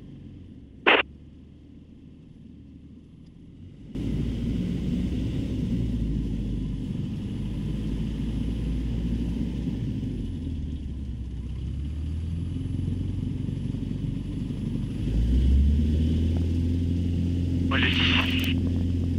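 Cessna 150's four-cylinder piston engine droning in the cockpit, low and steady at first. It gets louder about four seconds in and again near fifteen seconds as power is brought up for the take-off run. Short crackly radio voice bursts come near the end.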